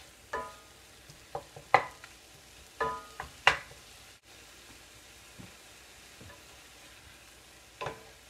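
Wooden spatula knocking and scraping against a cast iron skillet while breaking up and stirring ground beef: several sharp knocks in the first four seconds and one more near the end, some leaving the pan ringing briefly. Under them, a faint steady sizzle of the meat starting to fry as the pan heats.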